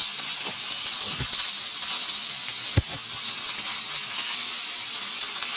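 Frozen steak searing in hot olive oil in a frying pan: a steady sizzling hiss, with a single sharp knock a little under three seconds in.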